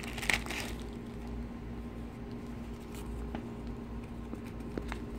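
Clear plastic packaging bag crinkling briefly as it is handled, stopping within the first second. After that, a steady low hum continues with a few faint ticks.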